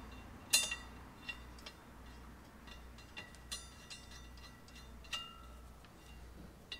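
Light metallic clinks and taps of spacer washers and bolts against the steel flex plate as a torque converter is bolted up, the sharpest about half a second in and a few fainter ones after. A low steady hum runs underneath.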